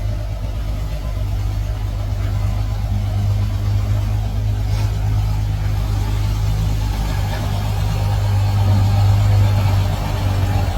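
Diesel engine of a backhoe running steadily with a low hum, slightly louder about nine seconds in.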